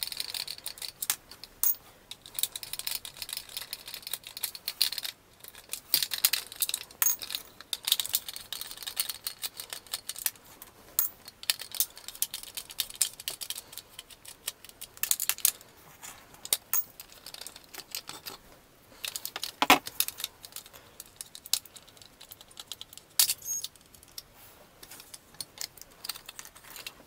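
Irregular small clicks, scrapes and rattles as a screwdriver turns screws out of the plastic underside of a vintage Kenner M.A.S.K. Thunderhawk toy car and the plastic body is handled and pulled apart, with one louder knock a little after the middle.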